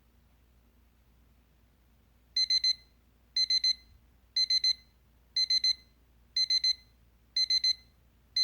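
Tribesigns digital kitchen timer's alarm going off as its 10-second countdown reaches zero: a high-pitched electronic beep in short bursts of rapid beeps, about one burst a second, starting a couple of seconds in after a near-silent stretch.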